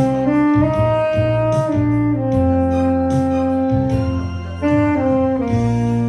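Tenor saxophone playing a slow melody of long held notes, moving stepwise between pitches, over an accompaniment with a steady beat.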